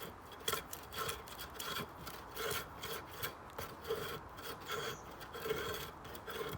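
Bark being scraped off an ash stick drawn repeatedly across the 90-degree spine of a knife hammered into a log: short rasping strokes of wood on steel, about two a second.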